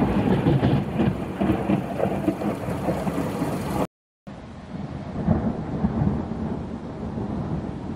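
Thunderstorm sound effect: rain and rolling thunder in a dense, swelling rumble, cutting out completely for a moment about four seconds in before carrying on.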